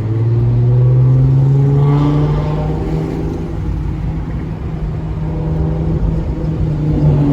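Car engine running under acceleration, its pitch rising in the first second and then holding as a steady drone.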